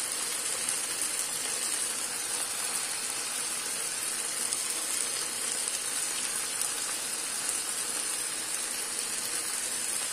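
A wide pan of half-cooked rice sizzling and bubbling steadily in hot liquid on a gas stove.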